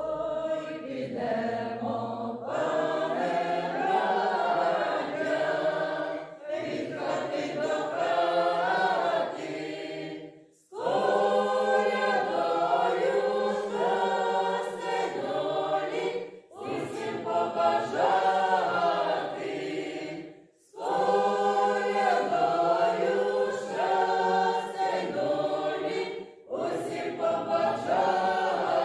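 Small mixed choir of men's and women's voices singing a Ukrainian Christmas carol unaccompanied. The singing comes in phrases of a few seconds, with brief breath pauses between them.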